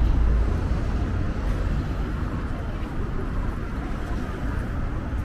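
Street traffic noise: a steady low rumble of passing vehicles, loudest in the first half-second.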